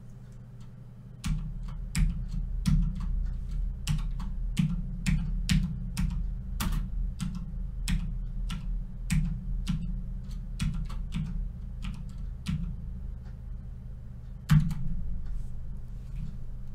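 Typing on a computer keyboard: irregular key clicks, a few a second, starting about a second in, with one louder keystroke near the end, over a steady low hum.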